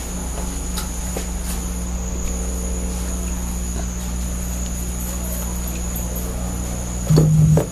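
Steady low electrical hum from the Hammond B3 and Leslie speaker amplification, with a faint high-pitched whine above it: the ground hum the owner still has to get rid of. About seven seconds in, an organ note sounds loudly over it.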